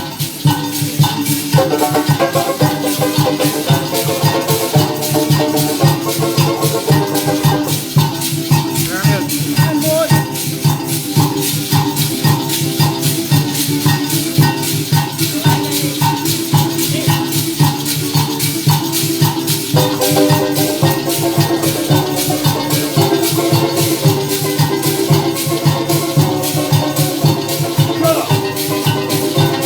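Parang band playing, with maracas shaken in a steady, even rhythm over pitched string and bass notes.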